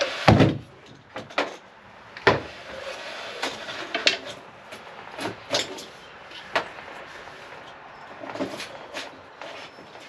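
Knocks and clunks of tools and hardware being handled inside a boat's rear compartment, with a heavy thump just after the start and scattered lighter knocks after it.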